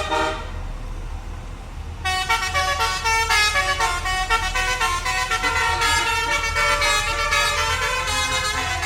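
Tour bus 'basuri' multi-tone musical horn playing a fast tune of quickly changing notes. It fades out just after the start and comes back about two seconds in, over a low steady hum.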